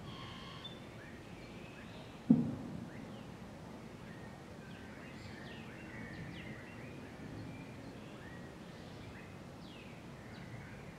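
Birds chirping and calling over steady outdoor background noise, with one sudden loud low thump a little over two seconds in.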